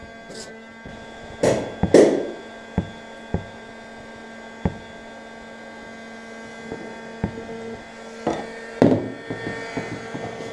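Steady hum of an electric heat gun running, with several sharp knocks and louder handling rubs as a metal rod and hands work the plastic bumper; the loudest handling noises come about one and a half to two seconds in, and again near the end.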